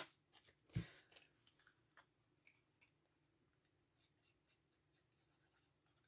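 Near silence, broken in the first two seconds or so by a few faint taps and rustles of paper strips being handled on a craft table, the clearest a little under a second in.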